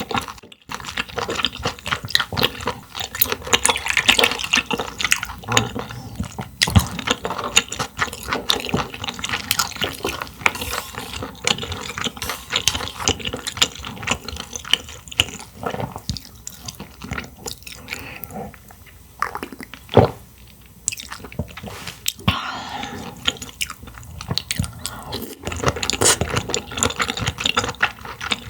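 Close-miked eating sounds of clams: wet chewing and mouth sounds, made up of many quick clicks and crackles, with a few louder snaps.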